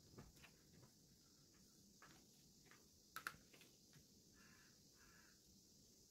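Near silence, with a few faint taps and clicks of a rotary cutter and a clear acrylic ruler being handled on a cutting mat over a leather strip; the loudest is a quick double click about three seconds in.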